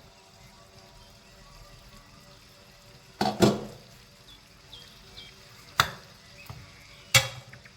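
Three sharp kitchen knocks, the first a double knock about three seconds in, the others near the middle and near the end, over faint background music with steady held tones.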